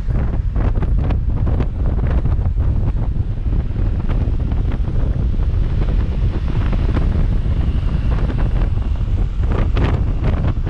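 Wind buffeting the microphone: a loud, steady low rumble with frequent irregular crackles.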